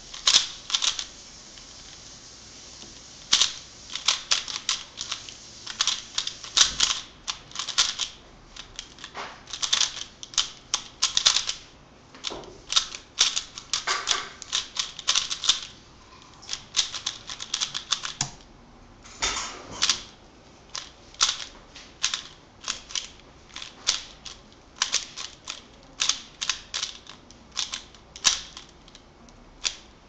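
Speedcube (3x3 Rubik's cube) being turned fast by hand: the plastic layers click in rapid runs of turns, broken by brief pauses.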